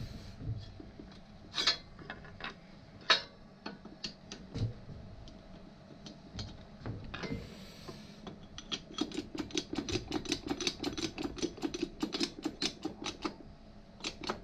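Mechanical clicking while parts are forced together: first a few scattered sharp clicks and knocks, then a fast, even run of ratchet-like clicks, about eight a second, for about five seconds before it stops.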